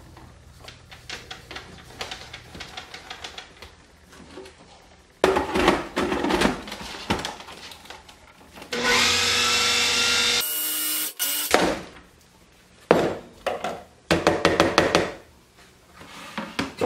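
Food processor blending almond flour and powdered sugar: the motor starts about nine seconds in and runs steadily for about two and a half seconds before stopping. Before and after, the plastic bowl, blade and lid clatter and click as they are fitted and handled.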